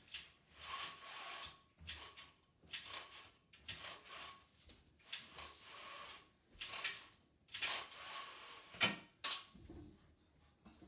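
A roller blind being pulled down in a run of strokes, about one a second, each a rubbing swish with a faint squeak in it, and a sharper knock-like stroke near the end.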